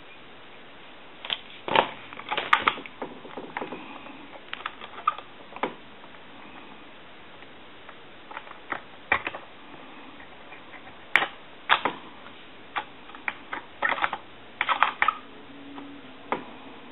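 Irregular clicks and light knocks of small hand tools being handled against a workbench and a circuit board, coming in clusters with pauses between them.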